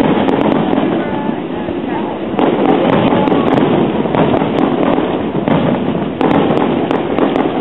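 Aerial fireworks shells bursting in quick succession, their booms and crackle running together into a dense, continuous noise, with fresh bursts hitting sharply several times.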